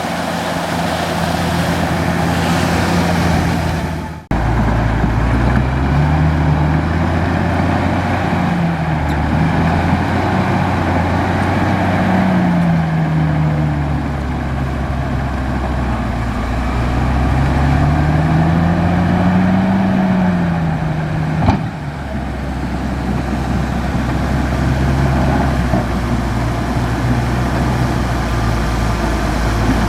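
Large bulldozer's diesel engine running while pushing dirt, its pitch rising and falling every few seconds as the load changes. The sound drops out briefly about four seconds in, and a single sharp clank comes about two-thirds of the way through.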